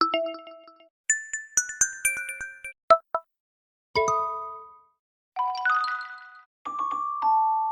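Huawei MatePad 11.5 tablet speaker playing its built-in HarmonyOS 3.1 system tones one after another. About six short electronic chimes and dings, each a second or so long, are separated by brief silences.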